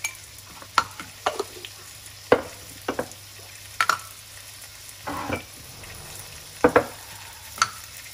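Radish and lemongrass sizzling gently in a nonstick wok, under about a dozen sharp, irregular clicks and knocks of kitchen utensils and seasoning jars. There is one short scrape a little past the middle.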